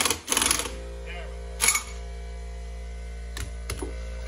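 Impact wrench rattling as it drives the screw of a C-frame ball joint press to push the ball joint out of a control arm; it stops under a second in, leaving a steady low hum, with a few light metal clicks later on.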